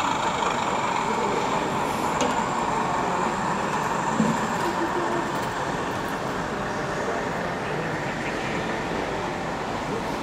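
Steady murmur of a crowded exhibition hall, with indistinct voices.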